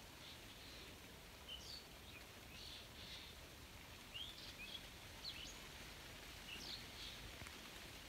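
Faint, scattered chirps and short whistled notes of small birds over a quiet background hiss.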